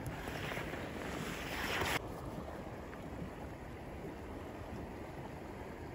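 Creek water rushing steadily over a shallow riffle. A louder, brighter hiss over the first two seconds cuts off suddenly.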